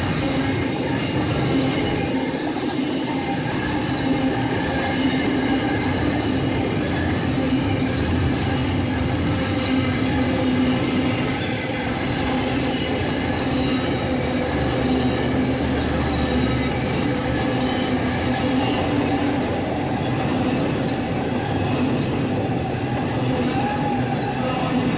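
Long freight train rolling steadily past on the rails, with a continuous run of wheel noise carrying several steady tones.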